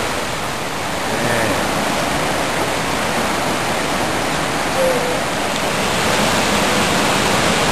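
Loud, steady rush of white water from a fast mountain stream tumbling over rocks.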